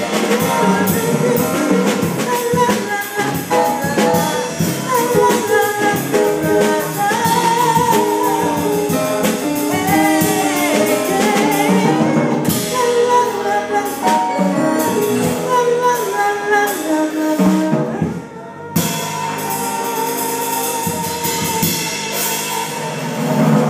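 A woman singing into a microphone over a live band, with a drum kit keeping the beat. The music breaks off briefly about three-quarters of the way through, then resumes.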